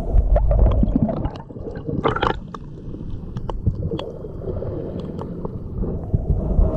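Sea water sloshing and gurgling with a low rumbling wash, dotted with many short sharp clicks and a brief louder splash about two seconds in.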